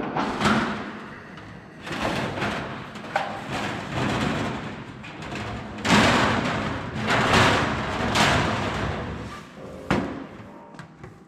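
Thin sheet metal being pulled off a coil and laid out by hand, flexing and rattling in a series of noisy swells, with thuds and a sharp knock near the end.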